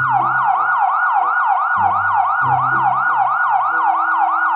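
Electronic police siren in a fast yelp: its pitch sweeps down and snaps back up about four times a second, starting abruptly. Background music with low steady notes plays underneath.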